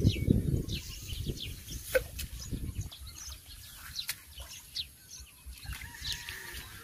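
Small birds chirping, many short calls one after another. There is a low rumbling noise in the first second, and a couple of sharp clicks about two and four seconds in.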